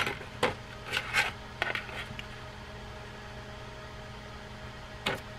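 Sharp clicks and taps of small fishing-reel parts and tools being handled on a workbench during reassembly: several in the first two seconds and one more near the end. A steady low hum runs underneath.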